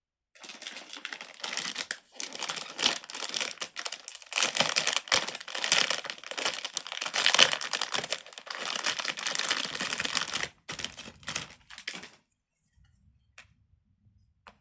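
Silicone pop-it fidget toy being popped rapidly: a dense run of small clicking pops that stops about twelve seconds in.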